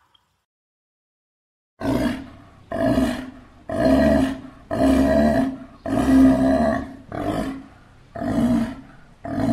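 Sea lion barking: a run of about eight low, pitched barks, roughly one a second, starting about two seconds in.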